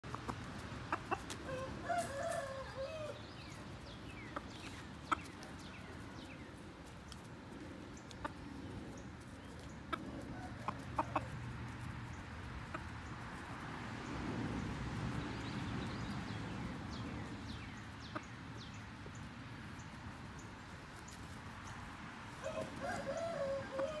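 Chickens calling: a short wavering rooster call about two seconds in and again near the end, with a few sharp clicks between.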